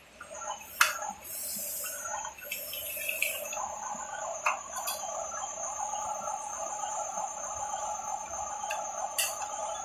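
Radio-controlled bulldozer's small electric motor and gearbox running steadily from about a third of the way in, with a few sharp clicks, under a constant high chirp like night insects.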